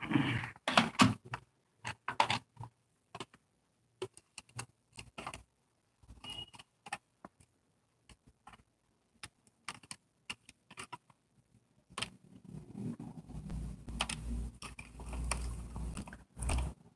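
Small clicks and taps of multimeter probes and phone parts being handled on a workbench, scattered irregularly. In the last five seconds there is a stretch of low rubbing and handling noise.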